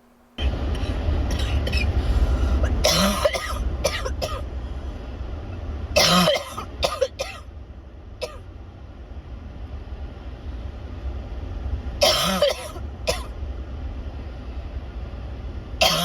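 A person coughing in fits from a persistent cough: harsh coughs about 3, 6 and 12 seconds in and again at the end, each followed by one or two shorter coughs. A steady low rumble starts suddenly about half a second in and runs underneath.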